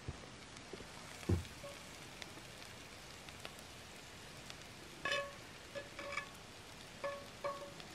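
Food sizzling in a cast iron pan over an open fire, a steady frying hiss with light crackles. There is a soft low knock about a second in, and from about five seconds on a run of short pitched squeaks or calls, each a fraction of a second long, louder than the sizzle.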